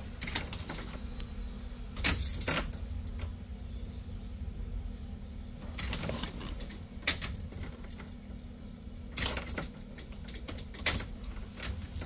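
Ignition keys jangling and clicking several times, in short separate bursts, as the key is turned off, over a steady low hum.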